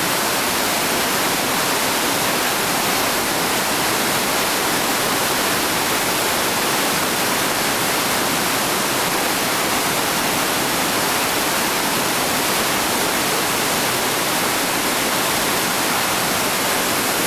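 Whitewater rapid rushing steadily over and around boulders, an even, unbroken roar of churning water.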